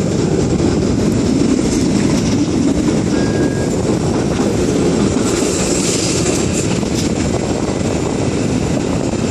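Toronto streetcar running along its tracks, heard from inside the car: a steady rumble of steel wheels on rail and drive motor, with a few faint clicks near the end.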